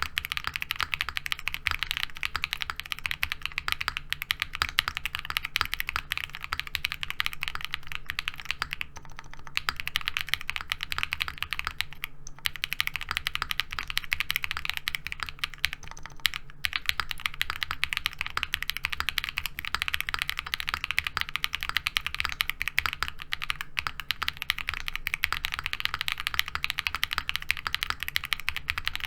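Fast, continuous typing on a Qwertykeys QK60 aluminium-cased 60% keyboard with hand-lubed KTT Rose linear switches and PBT keycaps, a dense stream of keystrokes. It breaks off briefly about nine, twelve and sixteen seconds in.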